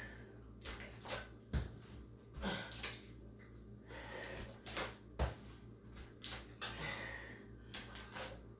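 A person breathing hard in short, sharp exhales, with a few dull thumps as dumbbells are set back down on an exercise mat.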